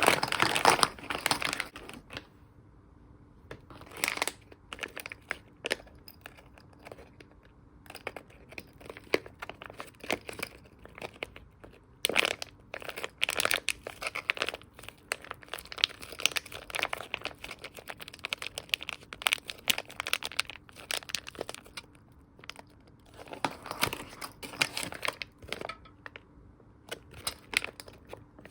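Plastic packaging crinkling and rustling in irregular bursts as it is handled, over a faint steady hum.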